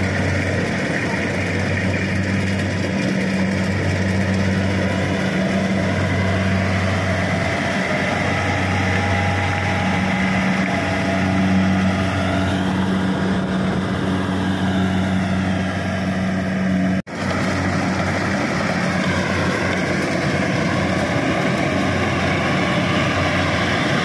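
Kubota DC-70 Pro rice combine harvester's diesel engine running steadily with a low hum while the machine cuts and threshes rice. The sound drops out for an instant about two-thirds of the way through, then carries on the same.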